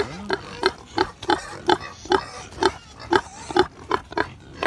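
A domestic pig grunting in a steady run of short grunts, about three a second.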